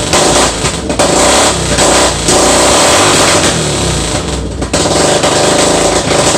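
Suzuki Savage's 650 cc single-cylinder four-stroke engine running loud, its level dipping briefly a few times.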